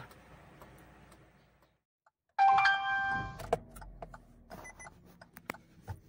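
Hyundai Tucson's dashboard warning chime: one electronic tone that starts suddenly about two and a half seconds in and fades over about a second. Scattered sharp clicks and light handling noise follow.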